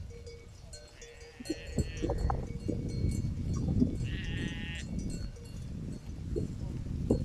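Sheep grazing close by, cropping and chewing grass in many short crackles, with two bleats, one about a second in and another about four seconds in.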